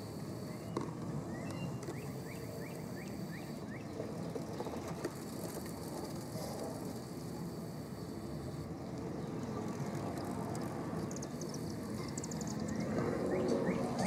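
Pileated woodpecker calling: two runs of quick, short notes that each slide upward in pitch, one near the start and one near the end, over a steady low background rumble.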